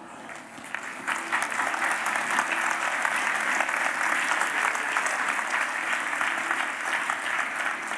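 Audience applauding, swelling about a second in and holding steady.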